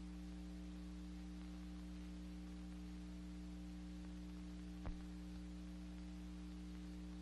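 Steady low mains hum and hiss, the noise floor of a worn old film print's soundtrack, with a single click about five seconds in.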